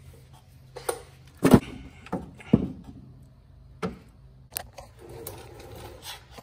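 A series of about six sharp metal knocks and clunks from a Saturn Vue's steering knuckle and front strut's lower mounting bracket as the two are worked apart, the lower bolts just removed. The loudest clunks come about a second and a half in and again a second later.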